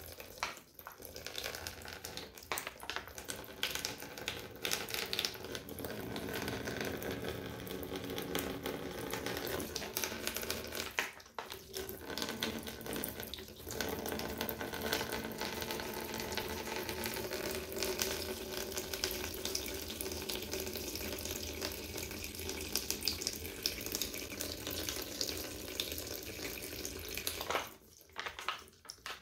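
Thin stream of water squeezed through a Sawyer Mini filter, splashing steadily into an empty plastic tub. The stream falters briefly twice partway through and dies away near the end. The flow is only so-so even under hard squeezing.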